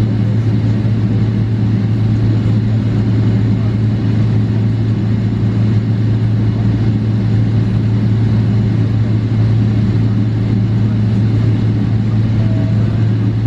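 Steady, even drone inside the cabin of a Boeing 777-300ER with its GE90 engines running, a strong low hum under a wash of air noise.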